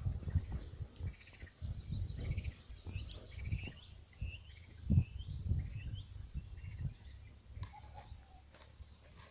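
Wind buffeting the microphone in low, uneven rumbles, with one stronger gust about halfway through. Small birds chirp behind it in short, quick repeated notes that fade out near the end.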